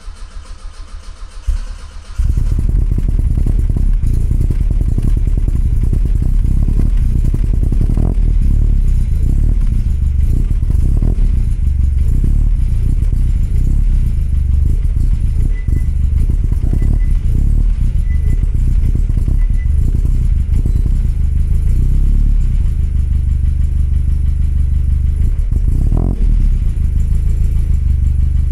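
1969 Alfa Romeo Spider 1750's twin-cam four-cylinder engine, fitted with an Alfaholics exhaust, finishing its start: it turns over with a pulsing beat, catches about two seconds in, then runs loud and steady at idle with an uneven, lumpy exhaust beat.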